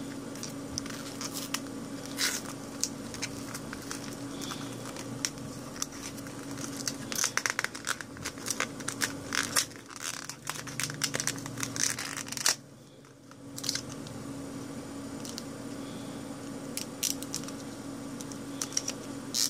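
Cardboard-and-plastic blister pack of a microSD card being torn open and handled: crinkling and tearing with many sharp crackles and clicks, densest around the middle, with a short pause about two-thirds through.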